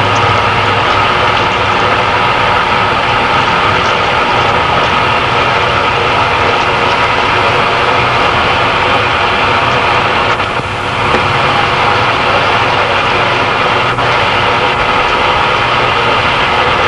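Water running steadily from a salon shampoo basin's hand-held sprayer, rinsing hair, with a short dip about ten seconds in.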